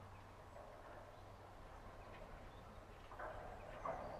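Faint low drone of a Class 70 diesel locomotive slowly drawing a rake of bogie tank wagons forward. About three seconds in comes a short louder spell of clicks and clanks from the wagons' wheels and couplings.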